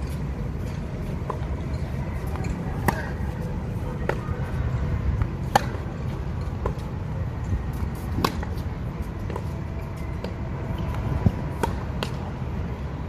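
Tennis rally on a hard court: sharp pops of racket strings hitting the ball every few seconds, the loudest from the near player, with softer hits and ball bounces between. A steady low rumble runs underneath.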